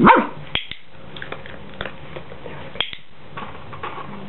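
A Jack Russell terrier gives a short, high whine that rises and falls at the very start. A few scattered sharp clicks follow, two of them louder, about half a second and just under three seconds in.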